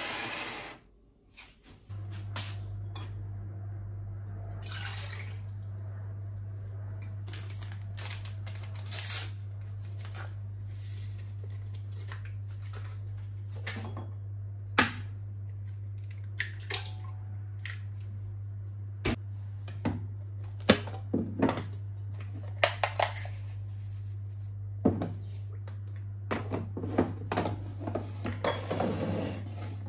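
Kitchen utensils and bowls clinking and knocking at irregular moments, more often toward the end, over a steady low hum that comes in about two seconds in.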